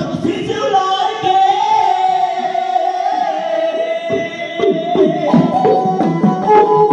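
Music with a singer holding one long, wavering note; about four seconds in, drum beats and instruments come in.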